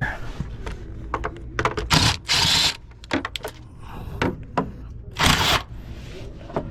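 Irregular clicks, knocks and scraping as car parts and tools are handled, with a few longer scrapes about two seconds in and again past the five-second mark.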